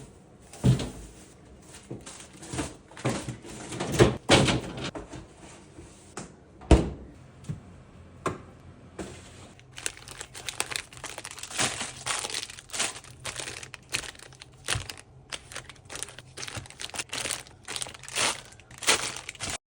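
Grocery packaging and bags crinkling and rustling, with scattered knocks and thuds as groceries are unpacked and put away.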